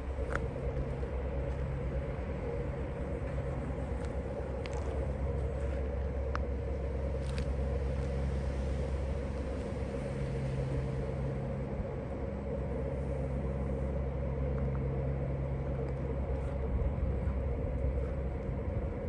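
A steady low engine drone, unchanging in pitch, with a few faint ticks.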